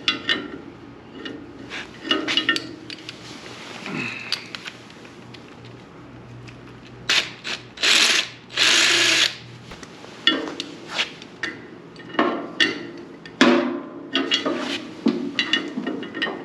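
Metal tools clanking and knocking while a three-jaw gear puller is fitted to a stuck sawmill pulley, with a power tool run in three short bursts about halfway through.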